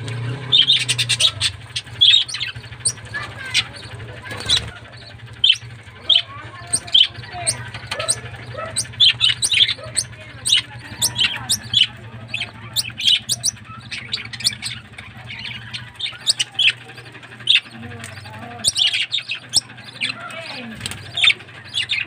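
Budgerigars chirping and chattering in a constant stream of short, sharp, high calls.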